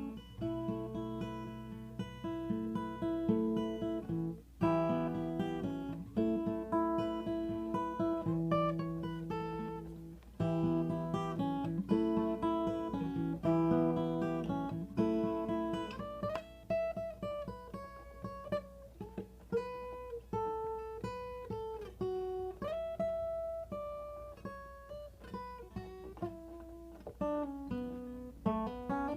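A guitar is played solo. For about the first half it strums and picks a repeating chord progression. After that it moves to single-note melodic lines, with notes that glide in pitch.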